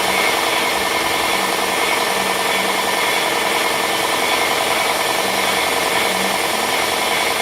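Electric woodworking power tool running steadily, its motor holding an even pitch.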